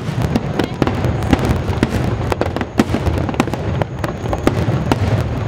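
Aerial fireworks shells bursting in quick succession: a dense run of booms and crackles over a continuous low rumble.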